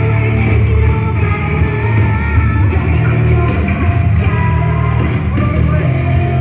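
A loud rock song with singing.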